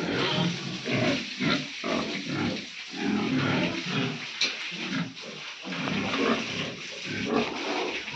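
Pigs grunting in a steady run of short, irregular grunts.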